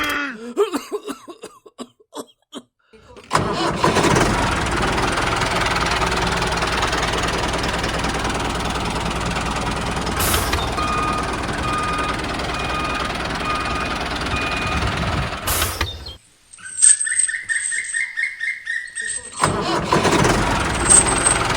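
Engine starting about three seconds in and then running steadily. Near the end it gives way for a few seconds to a higher-pitched pulsing whir before the running sound returns.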